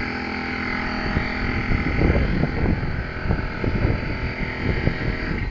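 Steady mechanical hum with a whine and hiss from a running motor-driven machine, cutting off abruptly near the end, over gusty wind buffeting the microphone.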